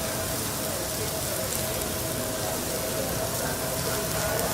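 Food sizzling on a teppanyaki griddle, a steady hiss with faint talk underneath.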